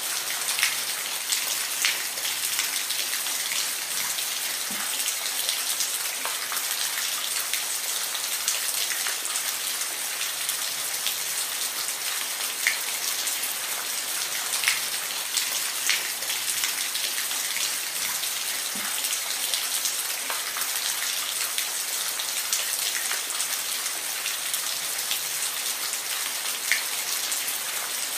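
Steady rain falling, an even hiss with individual drops ticking sharply on a surface here and there.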